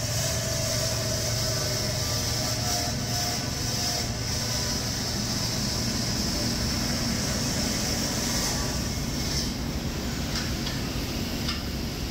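Steady drone of running machinery: a low hum under an even hiss.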